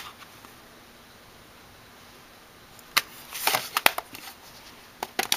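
Stacked plastic MAC eyeshadow palettes being handled by hand: a single click at the start, a few seconds of quiet room tone, then a run of light plastic clicks and clatters as the palettes are shifted about three seconds in.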